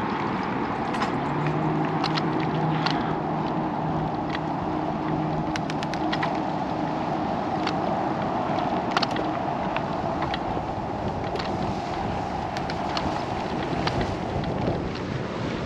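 Steady rush of wind and tyre noise from a bicycle being ridden, with scattered sharp clicks and rattles. A faint low hum runs from about a second and a half in until about nine seconds.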